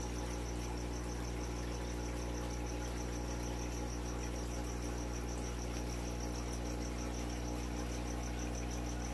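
Steady low electrical hum with a continuous high chirp that pulses evenly several times a second, like a cricket.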